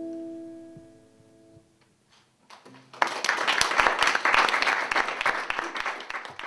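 The final acoustic guitar chord of a song rings out and fades away in the first second and a half. About three seconds in, the audience breaks into applause, which lasts about four seconds.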